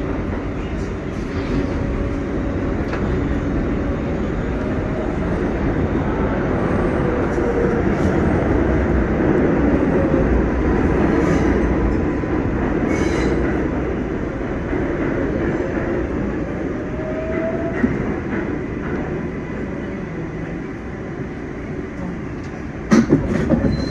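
Inside a moving R188 subway car: the steady rumble and rattle of the train running through the tunnel, with wheel-on-rail noise. A faint motor whine rises in pitch about two-thirds of the way in, and there are a few sharp clacks near the end.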